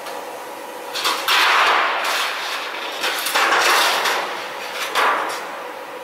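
Thin sheet metal rattling and scraping against a sheet-metal bending and locking machine as the sheet is handled and lifted off, in four loud spells of under a second each.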